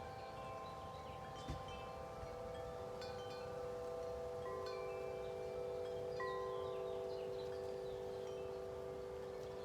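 Wind chimes ringing in a strong wind: chimes struck at irregular moments, their long tones overlapping and dying slowly. A sharp knock comes about a second and a half in.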